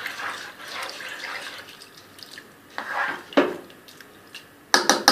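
Soy sauce trickling into a pot of rice, then a metal spoon knocking and clinking against the pot several times near the end as the rice is stirred.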